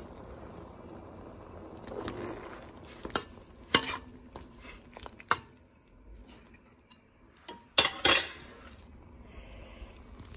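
A metal utensil knocking and clinking against a stainless-steel cooking pot of boiling broth: a few sharp knocks at uneven intervals over a low steady background, the loudest pair about eight seconds in.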